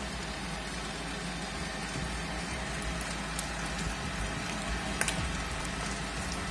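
Spiral dough mixer running, its motor humming under the steady wet slapping and churning of a soft, high-hydration pizza dough as water is worked in a little at a time. One sharp click about five seconds in.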